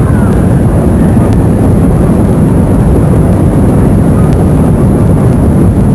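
Rocket engines at liftoff: a loud, steady, low rumbling roar.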